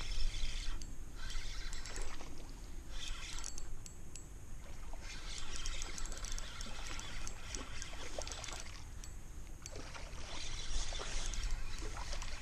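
Spinning reel being cranked in several spells with a fine rapid clicking, as a lure is retrieved across the water, over a steady low rumble.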